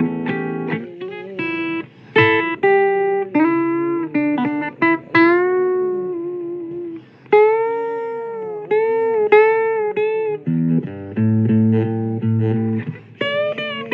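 Blues guitar instrumental break: single picked notes, many bent up and down in pitch, with a few low bass notes near the end.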